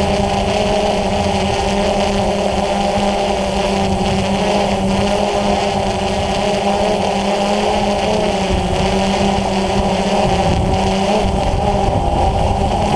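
DJI Phantom FC40 quadcopter's four motors and DJI 9450 propellers running in flight, picked up by the GoPro mounted on the drone: a steady, loud buzz made of several held tones whose pitches waver slightly as the motors adjust, over a rough low rumble.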